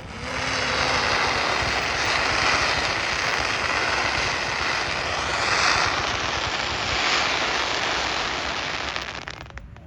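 Fireworks giving off a dense crackling hiss for about nine seconds before it fades away, with a few sharp cracks near the end.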